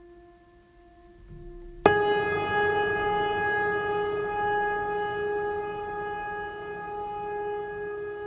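Background music: a quiet held drone tone, then about two seconds in a louder sustained chord begins suddenly and slowly fades.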